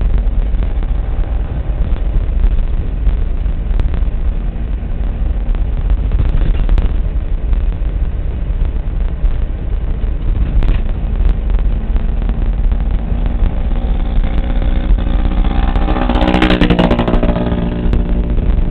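Motor vehicle noise: a steady low rumble, with an engine passing close by near the end, its pitch rising and then falling away.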